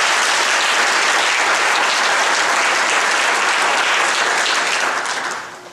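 Audience applauding, steady dense clapping that dies away near the end.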